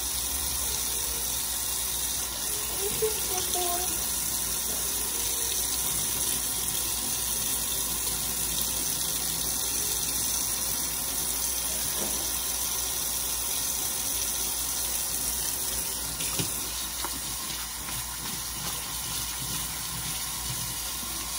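Kitchen faucet running a steady stream of water into a stainless steel sink while a kitten is bathed under it.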